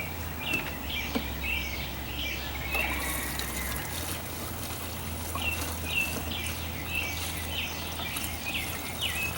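Gasoline being poured from a can into a push mower's fuel tank: a trickle with short high gurgling chirps about twice a second.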